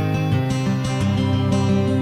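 Background music with a guitar.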